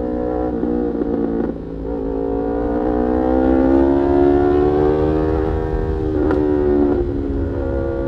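Yamaha R3's parallel-twin engine through an Arrow aftermarket exhaust, under way on the road. The revs break briefly about a second and a half in, climb steadily for a few seconds, then break again and settle lower near the end, the pattern of gear changes while riding.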